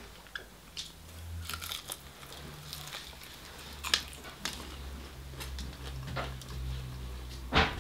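Close-up eating sounds: a person biting, tearing and chewing a fried chicken wing. The mouth makes sharp clicks throughout, and the loudest come about four seconds in and near the end.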